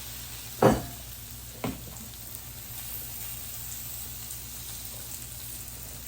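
Steady sizzling of food cooking in a hot pot, broken by two sharp knocks a second apart near the start, the first much louder.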